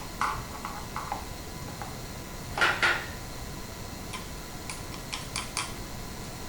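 Scattered light clicks and metallic clinks of a flat screwdriver being handled and set against a chainsaw. The loudest two come close together about midway, with a run of small ticks after.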